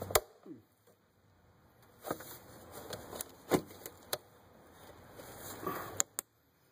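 A series of short, sharp plastic clicks and taps, about seven spread out with faint handling noise between them, as a flat screwdriver pries at the locking tab of an engine wiring-harness connector and gloved fingers work the connector loose.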